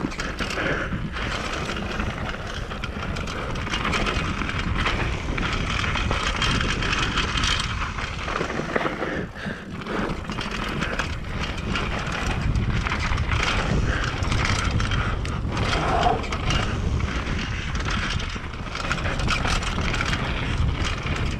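Mountain bike riding down a dirt flow trail: a continuous rumble of tyres on dirt with frequent rattles and clicks from the bike over bumps.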